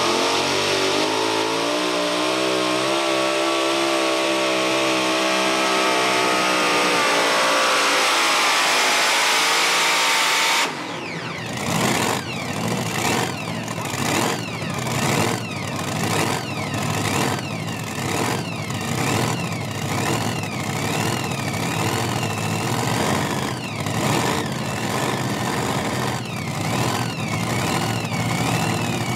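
Twin supercharged V8 engines of a modified pulling tractor running at full throttle under load, their pitch climbing and then sagging slightly, cut off abruptly about eleven seconds in. After that a single supercharged pulling-tractor engine runs with a heavy rhythmic lope, about one and a half pulses a second, under a wavering high whine.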